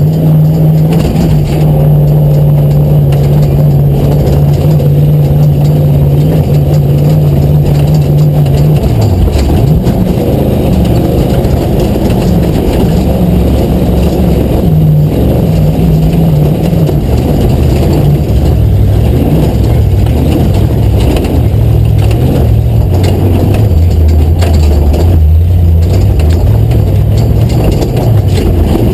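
V8 engine of a Ford Ranger prerunner running hard off-road, heard from inside the cab. It holds steady revs, drops sharply about nine seconds in, then rises and falls with the throttle for the rest of the run.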